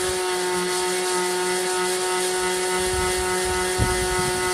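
Corded electric palm sander running at a steady whine, its pad sanding cured body filler with 120-grit paper. A few low knocks come through as the pad presses and shifts on the surface.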